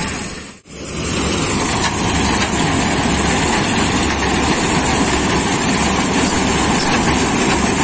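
Bharat combine harvester running at close range as its reel and header cut standing wheat: a steady, loud engine and machinery din. It drops out briefly about half a second in.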